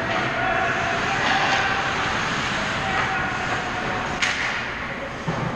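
Ice hockey skates scraping and carving on the rink ice, with a sharp knock about four seconds in as play reaches the net.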